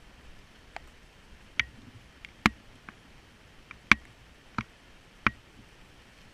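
Airsoft guns firing single shots: about nine sharp pops at irregular intervals, some loud and close, others fainter, with the loudest near the middle.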